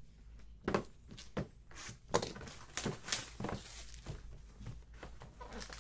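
A few light taps and rustles of trading cards and a cardboard card box being handled and set down on a tabletop.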